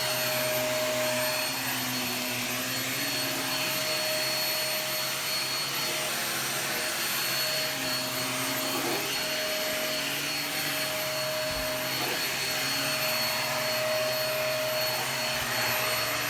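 Vacuum cleaner running steadily, a steady motor whine over the rush of air.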